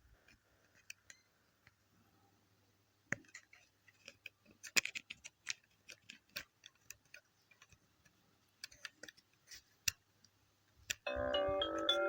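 Irregular light clicks and ticks over a quiet background. Music with a melody starts suddenly near the end.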